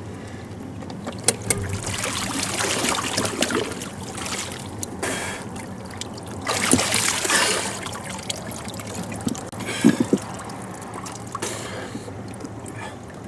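Water splashing and trickling around a man in the water as he tilts an outboard motor up out of the water, water running off the raised leg and propeller. There are uneven swells of splashing and a few sharp knocks.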